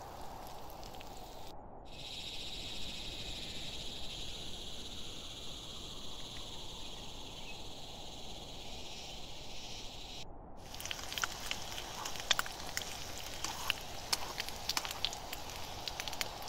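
Eggs and sausage slices frying in oil in a pan on a camp stove: a steady high sizzle, turning to sharp crackling and spitting about two-thirds of the way in.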